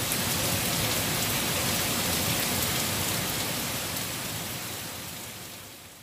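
Steady rain falling, a dense even hiss of drops that fades out near the end.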